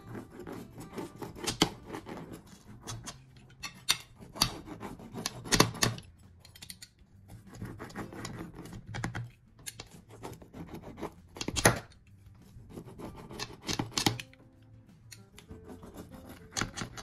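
A freshly baked pizza being cut: irregular crunching and scraping strokes of a cutting blade going through the crust, with a sharper stroke about twelve seconds in.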